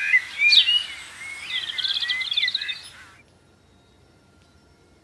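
Birds chirping and calling, with sharp whistled notes and a fast trill about two seconds in. The sound cuts off abruptly about three seconds in, leaving only faint background noise.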